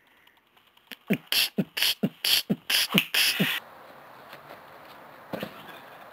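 Beatboxing: a quick vocal beat of low kick sounds that drop in pitch, alternating with sharp high snare sounds, about four a second for roughly two and a half seconds, starting about a second in. It cuts off abruptly into a steady faint outdoor hiss, with one dull thud near the end.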